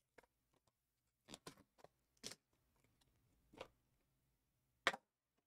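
Faint scattered scrapes and taps of a trading-card box being handled and opened, with a sharper knock near the end.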